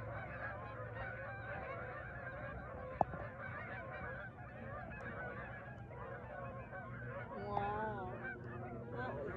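A flock of Canada geese honking in flight, many faint overlapping calls at once, the birds having just been flushed off their island. One short sharp click comes about three seconds in.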